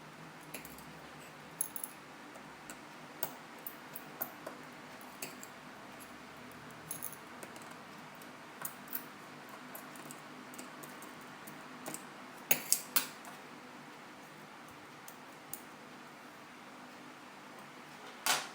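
Small metal clicks and taps as tiny screws are removed from an opened iPhone 5 with a small screwdriver and tweezers. The clicks are scattered and light, with a few louder ones a little past halfway and one more near the end.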